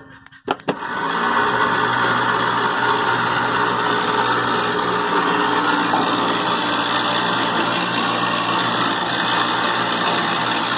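Small 12-volt DC motor with a reduction gearbox running steadily, turning a sprocket against a ring gear made of welded motorcycle chain. It stops briefly just after the start with a couple of sharp clicks, then runs again.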